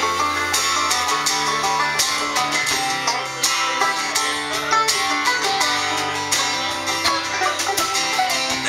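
Live country band playing an instrumental break between sung verses: plucked guitars over a steady drum beat.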